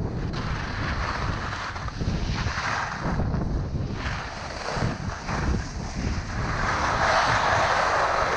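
Skis hissing and scraping over groomed snow at speed, with wind buffeting the GoPro's microphone. The scraping swells near the end as the skier slows to a stop.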